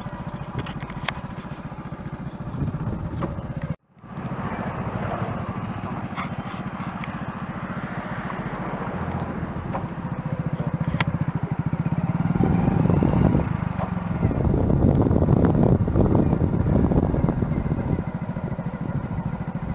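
Royal Enfield Bullet's single-cylinder engine running steadily with an even, rapid beat. The sound cuts out for a moment about four seconds in, and grows louder for several seconds past the middle.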